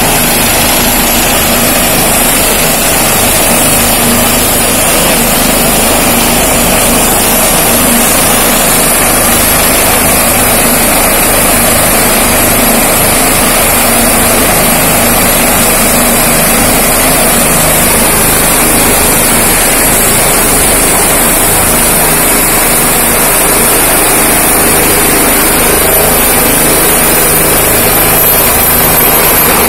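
Single-engine turbine helicopter running on the ground with its main rotor turning before takeoff: a steady, loud rush of rotor and engine noise over a thin high turbine whine, which climbs slightly in pitch near the end.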